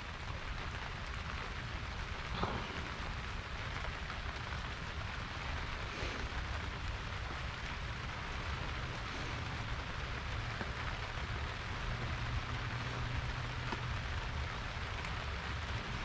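Steady background hiss with a low hum underneath and two faint clicks a few seconds apart.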